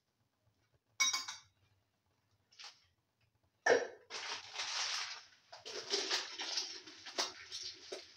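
Sharp clinks of metal against an aluminium cooking pan, one about a second in and a louder one just before halfway. After the louder clink a rough, fluctuating hiss with small crackles goes on to the end.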